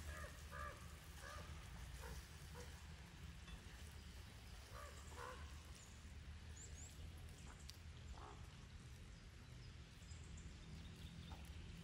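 Faint outdoor ambience with a low steady rumble, and short arched bird calls in two brief groups, one at the start and one about five seconds in, plus a single call near eight seconds. A few light clicks are scattered through.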